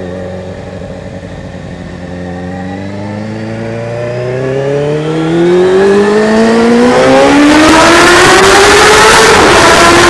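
Suzuki GSX-R600 SRAD inline-four engine accelerating hard in one long pull, its pitch rising steadily as it gets louder. Over the last couple of seconds it runs loud at high revs, echoing off the walls of a road tunnel.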